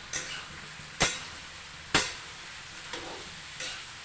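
Utensil clanking against a cooking pan: two sharp loud knocks about a second apart and a few lighter ones, over a faint steady hiss.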